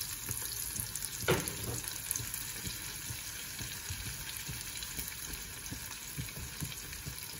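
Onions, tomatoes and peppers sizzling in oil in a frying pan while corned beef is spooned in and pressed apart with a spatula, with soft scraping strokes against the pan. A single sharp knock about a second in.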